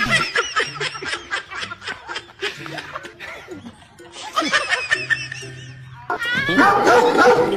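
People laughing in repeated bursts, over background music.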